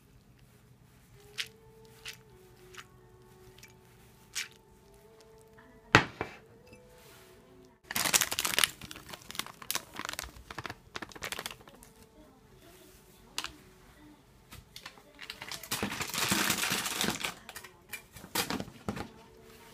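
A packet of powdered milk crinkling as it is handled and shaken over a bowl of dry kibble, in two spells of rustling, the second one longer and louder. Before that come a few light clicks and one sharp knock about six seconds in.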